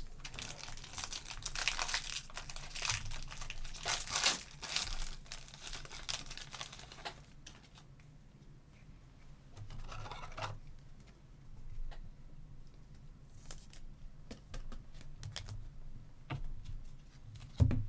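Foil wrapper of a trading-card pack being torn open and crinkled for the first several seconds, then quieter handling of the cards with a few light clicks and one more short crinkle about ten seconds in.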